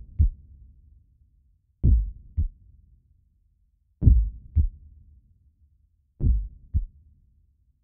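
Slow heartbeat sound effect: deep double thumps, lub-dub, repeating about every two seconds.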